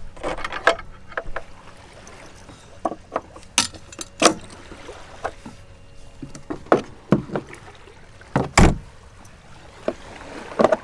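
Metal clicks and knocks of hydraulic hose quick-connect couplings being handled and pushed onto their fittings as a detachable propeller unit is hooked up to the truck. A series of short, irregular clacks, the loudest one late on.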